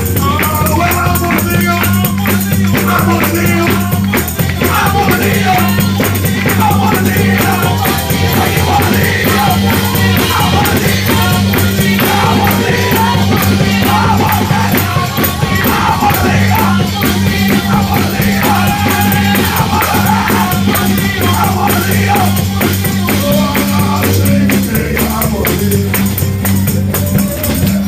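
Live holiness-church gospel music: voices singing over a fast, steady tambourine beat with a held bass note underneath.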